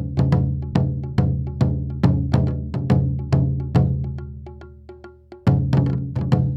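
Japanese taiko drums played in a driving rhythm: deep, ringing drum strokes with quick sharp wooden clicks between them. The drumming dies away briefly about five seconds in, then comes back with a heavy stroke.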